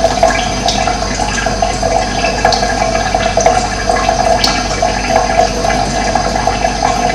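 Steady rush of running water, with a few brief high chirps over it.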